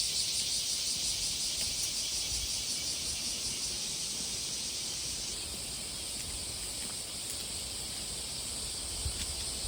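Steady chorus of insects trilling, high-pitched and continuous, with another high-pitched trill joining about five seconds in.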